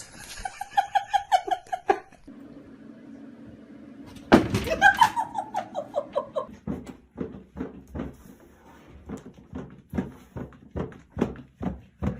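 A person laughing in quick rhythmic bursts, with a loud outburst about four seconds in that falls in pitch. Then comes a run of sharp knocks or thumps, about two a second.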